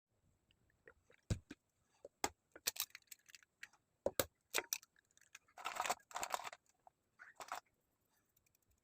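Kitchen dishes and utensils clinking and knocking, a dozen or so sharp separate strikes, with a scraping, rustling stretch of about a second roughly six seconds in.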